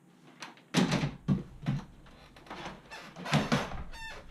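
A run of heavy thumps and knocks as things on a computer desk are handled and moved, with rustling between them and a short rising creak near the end.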